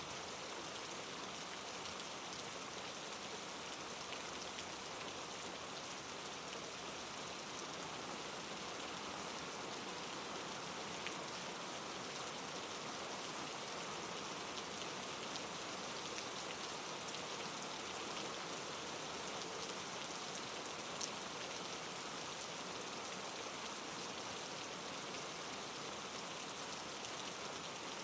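Steady rain falling, a continuous hiss with many small drop ticks and an occasional louder drop.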